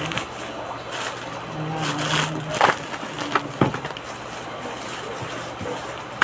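Plastic toy packaging rustling and crinkling as it is handled, with a few sharp clicks and knocks.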